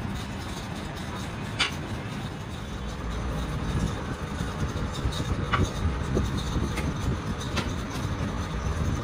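A low, continuous rumble with a few sharp knocks spaced a couple of seconds apart.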